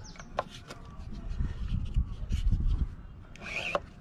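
A small squeegee scraping paint across a silkscreen frame pressed onto wooden blocks, with a few light clicks and a low rumble for about a second and a half in the middle.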